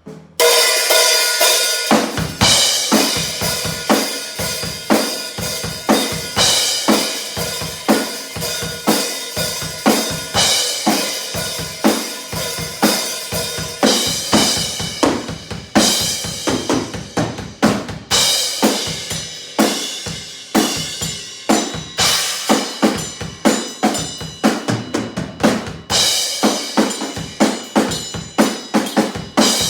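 Drum kit played continuously: bass drum, snare with rimshots and crashing cymbals in a steady groove with fills. The kit is set up with two bass drums.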